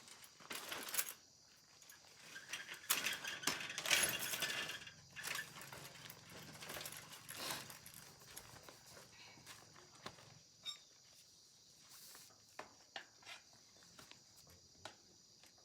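Metal clinks, knocks and clatter of hand tools working on a bicycle, busiest a few seconds in, then sparser clicks.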